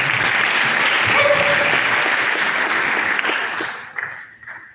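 Audience applauding, steady at first and dying away about three and a half to four seconds in.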